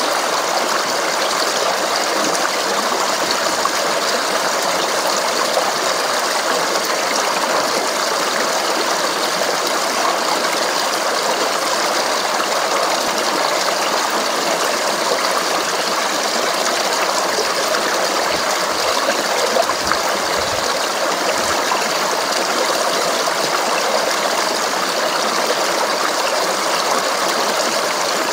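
A stream babbling and splashing over rocks, a steady, unbroken rush of running water.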